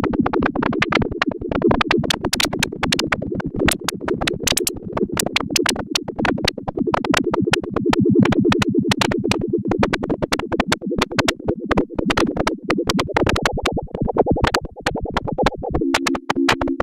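SoundHack Spectraphon synthesizer module playing a fast, irregular stream of sharp clicks and pulses over a low buzzing drone, the texture shifting as its knobs are turned. Near the end it settles into a steady two-note tone.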